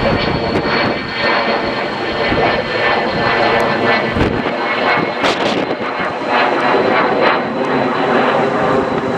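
Airliner engines running loud and steady, with a thin high whine held throughout. Wind gusts buffet the microphone.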